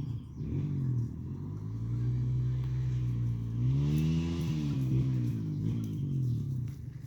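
A motor vehicle engine running, its low pitch rising and falling as it revs, climbing highest about four seconds in.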